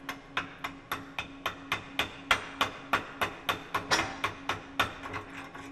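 Chipping hammer tapping slag off a freshly cooled arc-weld bead on steel, in sharp, evenly spaced metallic taps about three or four times a second, louder in the middle.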